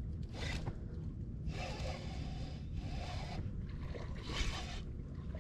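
Lew's spinning reel cranked in about four short bursts, a whirring hiss each time, as a hooked bass is reeled in to the bank.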